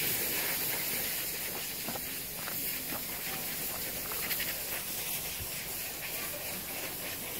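Steady hissing outdoor background noise with a few faint, scattered ticks, picked up by a camera carried along a forest trail.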